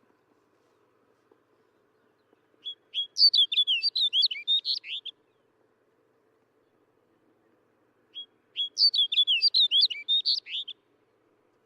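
Snow bunting singing: two short phrases of quick, warbled notes, each about two and a half seconds long, the second starting about eight seconds in.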